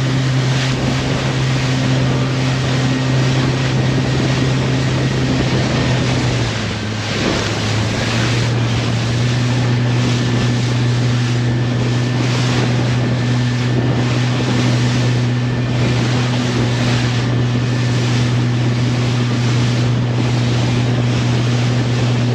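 Boat engine running at a steady pitch under wind and water noise, its note dipping briefly about seven seconds in before settling back.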